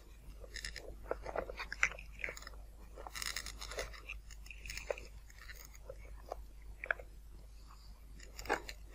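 Faint, irregular clicks and crackles of motor wires and their plugs being pulled apart and reconnected inside a foam model plane's fuselage. Two of the brushless motor's three phase wires are being swapped at the speed controller to reverse the motor's direction of rotation.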